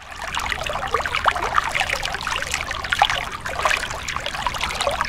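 Thin stream of water from a miniature DIY water pump splashing and trickling into a small pool of water, an irregular patter of little splashes over a faint low hum.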